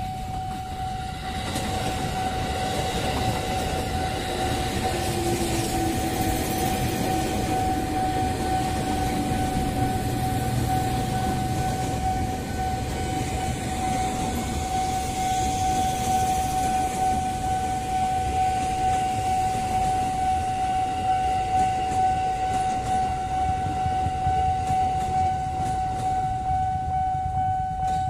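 A KRL commuter electric train passing close by, its wheels rumbling over the rails. Over it, the level crossing's warning alarm sounds one steady, unbroken high tone the whole time.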